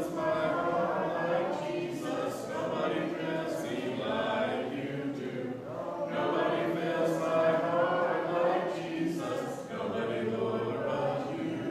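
Congregation singing a worship song a cappella, many voices together without instruments, with a short break between lines about six seconds in.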